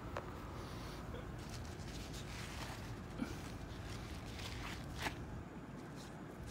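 Steady low background noise with a few faint clicks, the loudest about five seconds in.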